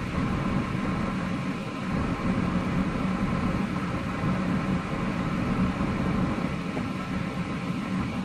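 Car driving slowly on a snow-covered road: steady engine and tyre noise.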